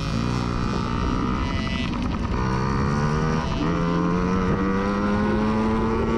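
Small 50cc dirt bike engine revving through a race, its pitch climbing three times and dropping back twice.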